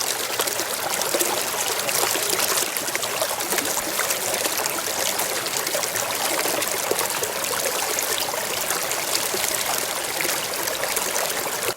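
Waterfall: water falling and splashing in a steady, dense rush, with many small splashes through it.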